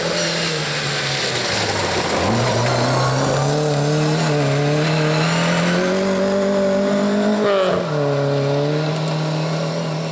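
Ford Escort Mk2 rally car engine at full throttle: the note drops as the driver lifts for the corner, climbs steadily as the car accelerates out, then falls sharply at an upshift about three-quarters through before pulling on.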